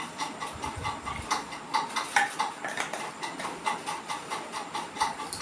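Water glugging as a person drinks it down in one go, a quick run of short pops about four a second.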